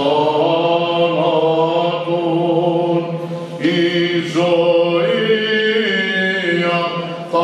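A male cantor sings Greek Orthodox Byzantine chant in long, drawn-out melodic notes over a steady low drone.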